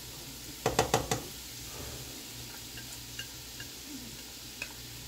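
Chopped vegetables scraped from a bowl into a hot skillet of frying chicken, with a quick run of spoon knocks against the bowl about a second in and a few lighter clicks later, over a low steady sizzle.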